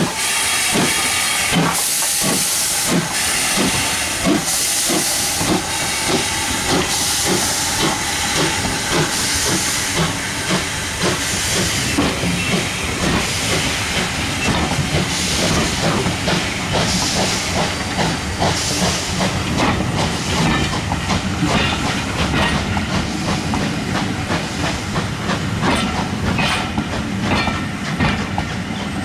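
A steam locomotive working past with rhythmic exhaust beats and hissing steam, followed in the second half by the coaches rolling by, wheels clicking steadily over the rail joints.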